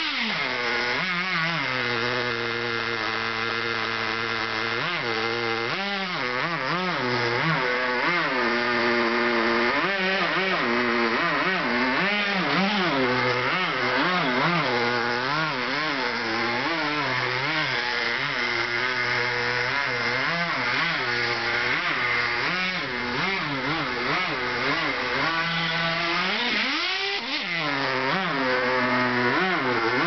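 Two-stroke .18 nitro engine of a 2-speed Forza RC buggy, revving up and down over and over as the buggy is driven, its pitch rising and falling in quick sweeps with a big rise and drop near the end.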